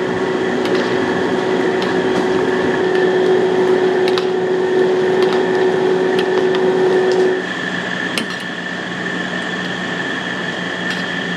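Steady roar of a street-stall wok station's gas burner and extractor fan, with a few sharp metal clicks. A steady hum cuts out and the roar gets a little quieter about seven seconds in.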